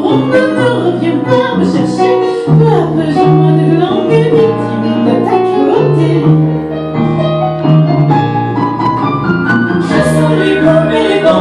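Live band music: women singing into microphones over an upright double bass playing a line of bass notes that change pitch every half second or so.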